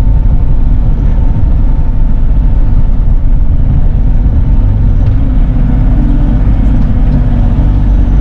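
A Bobcat E42 R-series mini excavator's diesel engine running steadily while digging, heard from inside the closed cab. It is a dense low rumble with a thin, steady whine above it.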